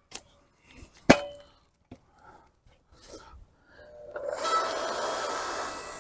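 A few sharp knocks and clinks, the loudest just after a second in with a short metallic ring, then a steady rushing noise from about four seconds in.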